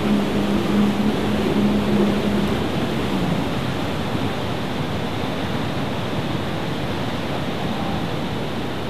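Rescue jet ski engine running steadily over the rush of churning white water, its tone easing off and fading about three seconds in, leaving the steady roar of the water.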